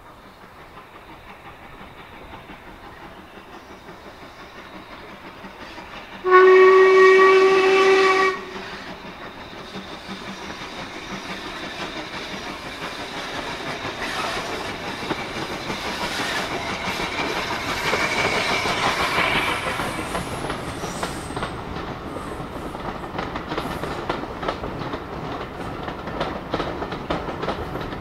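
The whistle of LMS Jubilee 4-6-0 steam locomotive 45596 Bahamas sounds once, loud and steady for about two seconds, about six seconds in. Then the locomotive works closer, its sound building to a peak over the next dozen seconds, and a quick run of wheel clicks over the rail joints follows as the train passes.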